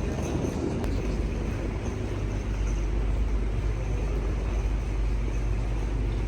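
Steady rumble of a train, with a constant low hum and no distinct events.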